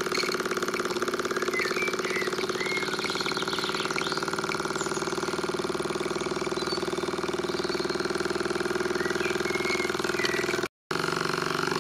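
Mamod TE1A model steam traction engine running under steam, its small oscillating cylinder beating out a fast, even chuff as the crank and flywheel spin. The sound drops out for a moment near the end.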